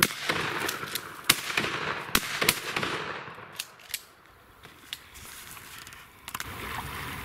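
Several shotgun shots in quick succession over the first two and a half seconds, then fainter clicks and knocks.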